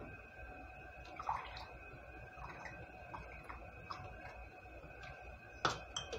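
Water being spooned into glass canning jars: small splashes and light clinks of the utensil against the glass, with a sharper clink near the end.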